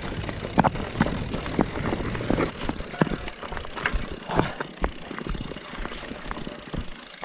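Mountain bike clattering over a rough trail, heard through a handlebar-mounted camera: a constant rush of tyre and wind noise with many irregular knocks and rattles. The bike is being ridden on a punctured tyre.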